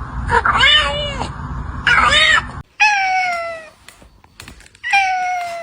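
A kitten meowing again and again, about four meows. The last two are long and drawn out, sliding slowly down in pitch. A steady background rumble under the first half cuts off abruptly partway through.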